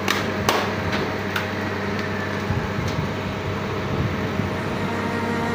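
A steady mechanical hum of something running, with a few sharp clicks or taps in the first three seconds.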